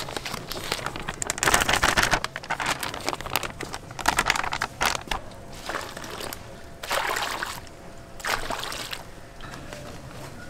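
Liquid sloshing and trickling in several short, irregular bursts.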